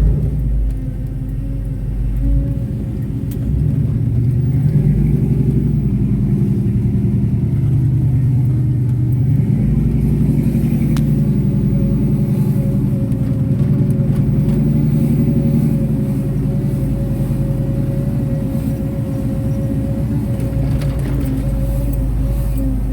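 LS-swapped V8 car's exhaust under way, the engine note rising twice as it accelerates and then settling to a steady cruise. A thin steady whine runs underneath, the loud fuel pump that the owner puts down to a filter clogged with rust from the old gas tank.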